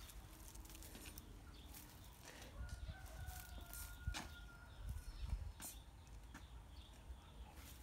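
A single faint, held bird call about a second and a half long, starting a little over two seconds in, with a few faint clicks around it.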